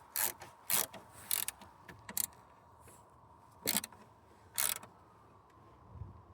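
Ratchet spanner tightening a bolt: short bursts of ratcheting, four in quick succession about half a second apart, then two more after a pause.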